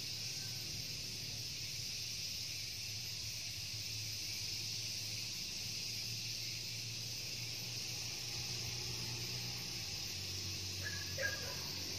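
Steady insect chorus, an even high hiss, over a low hum that grows a little near the end. A brief sharp sound stands out just before the end.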